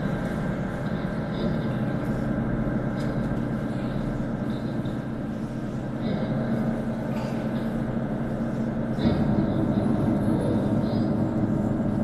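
Droning sound track played through a floor loudspeaker: layered sustained tones over a steady low drone, shifting a few times and stepping up in loudness about nine seconds in.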